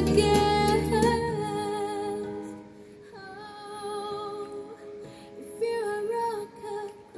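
Song with a woman singing over instrumental accompaniment, played through hi-fi speakers. It drops quieter about two seconds in, then the singing comes back.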